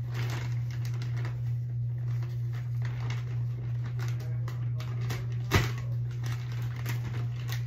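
Scattered rustling and small clicks as a bag and rabbit-cage bedding are handled, over a steady low hum, with one sharp knock about five and a half seconds in.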